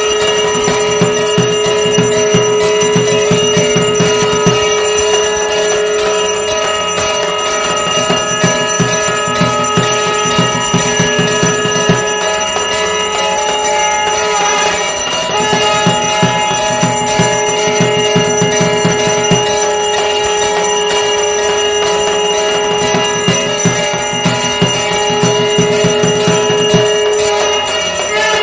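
Temple bells ringing continuously for an aarti, with sustained overlapping tones. Rapid low beating comes in in stretches of about four seconds, breaking off and returning a few times.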